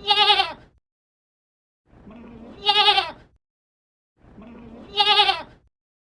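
Goat bleating three times, about two and a half seconds apart: each call opens low and quiet, then breaks into a short, wavering bleat.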